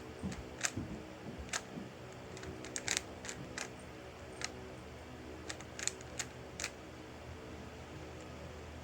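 Irregular plastic clicks and clacks of a 3x3 Rubik's cube being turned, about a dozen, stopping about seven seconds in, over a faint steady hum.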